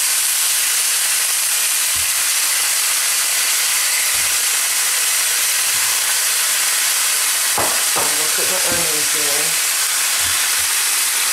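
Canola oil sizzling steadily in a hot stainless-steel skillet around a browned chuck roast as wet potato chunks go in, with a few soft knocks as pieces are set down in the pan.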